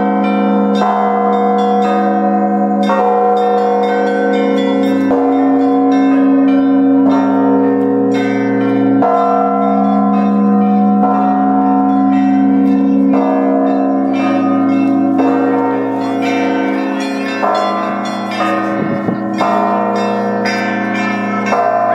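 Church bells being rung in the Russian Orthodox manner: a large bell struck about every two seconds, with quick strikes of smaller bells between, all the tones ringing on and overlapping.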